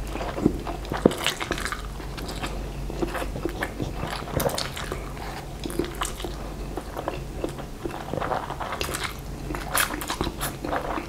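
Close-miked eating of fried instant noodles: a person slurps the strands in from chopsticks and chews them, with many short, irregular mouth clicks and smacks.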